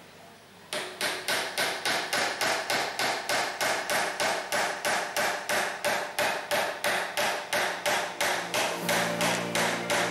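Small hammer tapping small wooden pegs into a wooden model boat hull. It strikes in a quick, steady run of about three blows a second, starting just under a second in.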